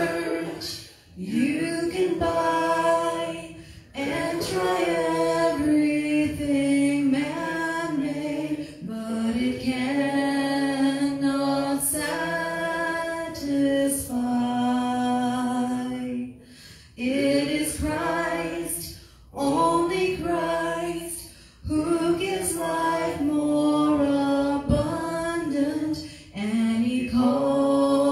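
A woman singing a slow worship song into a handheld microphone, in long held phrases with short breaks for breath between them.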